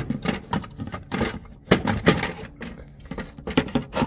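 Irregular clicks, taps and light knocks of hardware being handled: a slideout roller and its metal shoe being fitted into place by hand under an RV slideout.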